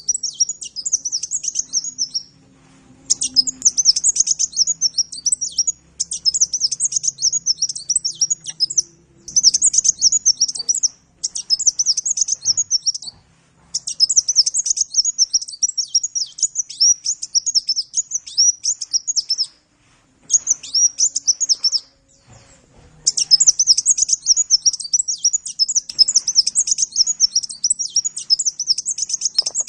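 A sunbird (Indonesian 'kolibri') singing a fast, high-pitched twittering song. The song comes in runs of a few seconds each, broken by short pauses.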